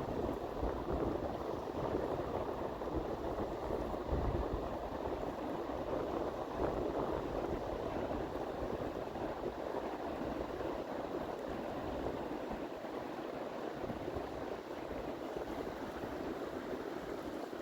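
Rapids of the St. Lawrence River rushing steadily: a constant wash of turbulent white water.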